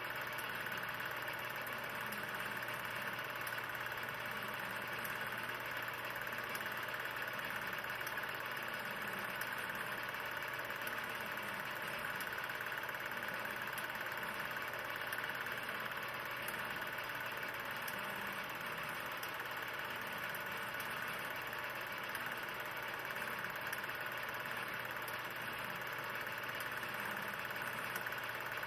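Steady machine-like running noise: an even hiss with a low hum and a faint irregular low pulsing, unchanging throughout. The film itself is silent, so this is noise of the transfer, not a sound of the scene.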